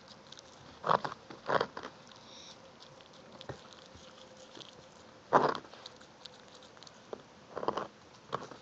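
A small dog gnawing an elk antler, its teeth scraping and crunching on the antler in short bursts at irregular intervals, the loudest about five and a half seconds in.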